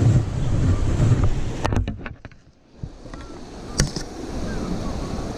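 Fast river water rushing over rocks in a riffle, with wind buffeting the microphone; the rush drops away briefly about halfway through. A few sharp clicks or knocks come about two seconds in and again near four seconds.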